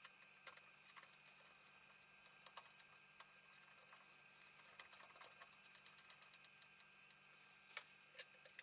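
Faint small clicks and rattles of metal circular multi-pin cable connectors being fitted and screwed onto a panel socket, with two slightly sharper clicks near the end.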